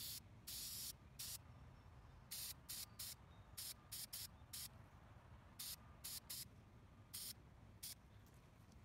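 Aerosol can of Krylon primer spraying onto a plastic model part in a string of hissing bursts: a few longer sprays in the first second or so, then about a dozen short, quick bursts until near the end.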